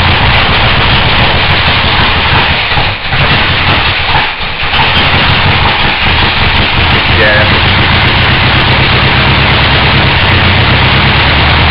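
454 big-block Chevrolet V8 running loud on its first start, fed by gasoline poured into the carburettor, faltering briefly twice, about three and four and a half seconds in.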